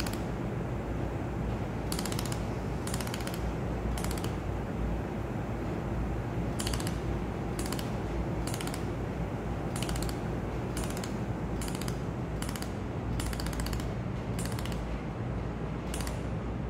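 Pulsed laser spot welder firing short bursts at a metal workpiece: about a dozen sharp, crackling snaps, roughly one a second with a pause after the first three, over the machine's steady hum. The beam's focus is being adjusted; the snap is loudest and the spark biggest when the beam is in focus.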